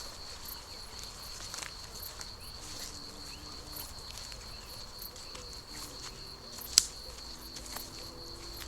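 A steady high insect trill, with footsteps crackling in dry grass and a sharp click a little before the end that is the loudest sound. Bees hum faintly in two short stretches.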